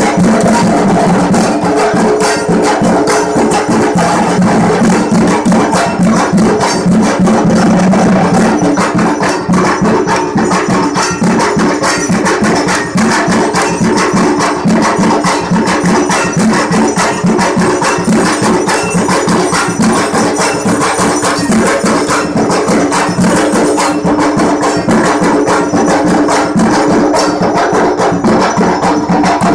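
Dhak drums beaten with thin sticks in a fast, driving rhythm, the traditional drumming that accompanies the dhunuchi dance.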